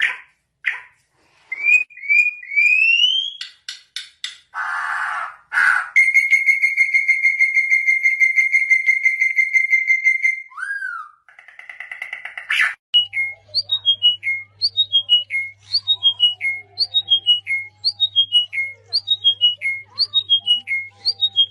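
A songbird singing a varied song: short rising whistled notes, then a long rapid trill held on one pitch for about four seconds, then a quick falling whistled phrase repeated over and over, a little faster than once a second.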